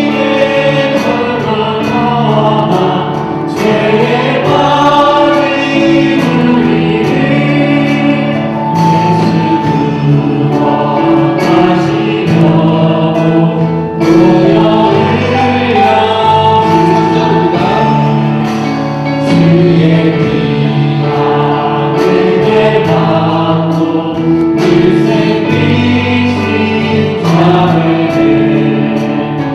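Church choir singing a hymn in parts with instrumental accompaniment.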